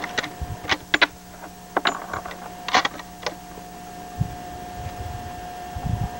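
Bolt of an Armalite AR-30 bolt-action rifle being worked after a shot: a quick run of sharp metallic clicks and clacks over about three seconds as the spent .300 Win Mag case is extracted and a fresh round chambered. A couple of dull low thumps follow near the end.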